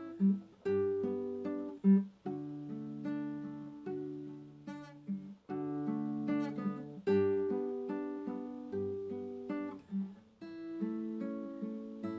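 Solo acoustic guitar playing a slow, gentle piece: plucked and lightly strummed chords, each fading out before the next.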